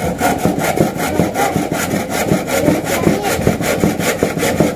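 Handsaw cutting wood in quick, even back-and-forth strokes.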